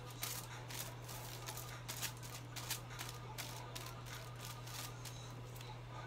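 Aluminium hair foil crinkling and crackling in quick irregular bursts as it is handled and a tint brush works colour onto it, dying away near the end. A steady low hum runs underneath.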